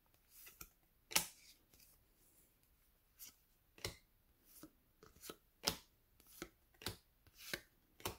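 2020 Panini Contenders football trading cards flipped one at a time through a hand-held stack: about a dozen faint card-on-card snaps and slides at irregular intervals, the loudest about a second in.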